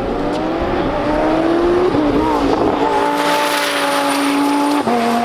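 Audi R8 V10 accelerating hard past. The engine note climbs, wavers briefly around two seconds in, then holds a loud steady note as the car goes by. Near the end it drops suddenly as the car shifts up a gear.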